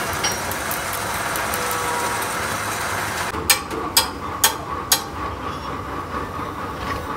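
Stick-welding arc crackling steadily as a hydraulic cylinder's eye end is welded back onto its barrel. A little over three seconds in, the arc stops and four sharp knocks on the steel follow, about half a second apart.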